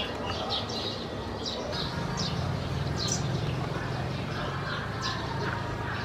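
Small birds chirping: short, high calls repeated irregularly, over a low steady hum that sets in about two seconds in.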